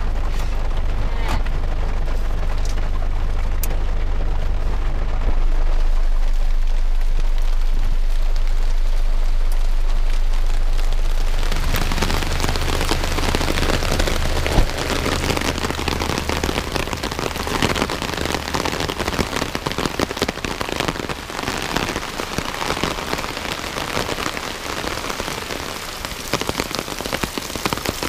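Heavy rain. At first it is muffled inside the pickup's cab over a low steady hum. About 12 s in it turns loud and hissing as the rain pours down outside, with a single thud a couple of seconds later.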